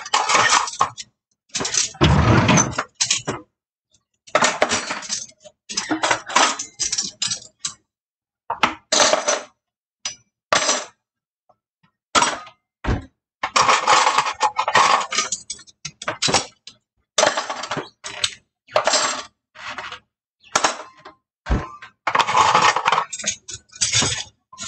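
Kitchenware clinking and clattering in repeated short bursts as items are taken from a dish rack and put away into a kitchen drawer.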